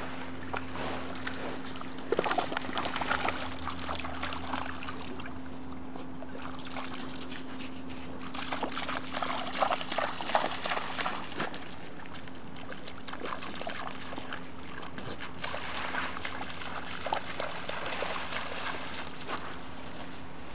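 A Great Dane and a Jack Russell terrier wading and splashing through shallow lake water, the splashing coming in irregular spurts, busiest around the middle.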